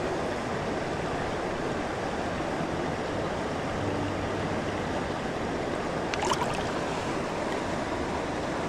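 Salmon river water rushing steadily, an even wash of flowing current.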